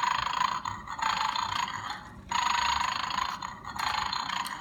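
Electronic toy dog from a 'Beware of the Dog' game snoring through its small speaker. It plays a scratchy, looping snore that repeats about every second and a half, showing the dog is still 'asleep'.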